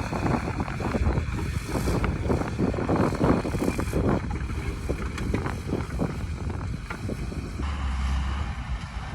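Diesel engine of a loaded Tata 10-wheeler truck running over rough field ground, with frequent knocks and rattles and wind buffeting the microphone. About three-quarters of the way in the sound changes abruptly to a steadier low rumble.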